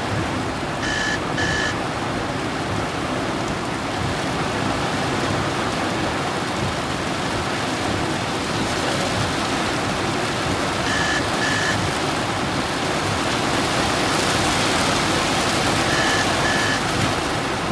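Heavy rain pouring on a car's roof and windscreen, heard from inside the cabin as a loud, steady hiss. Three times a pair of short, high electronic beeps sounds: about a second in, about ten seconds later, and near the end.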